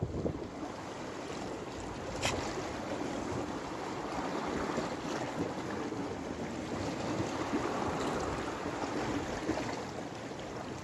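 Steady rushing noise of sea water and wind at the shoreline, with one sharp click about two seconds in.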